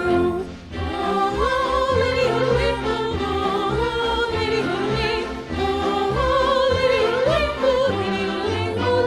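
Music: a voice singing held, wavering notes over instrumental accompaniment with a pulsing bass.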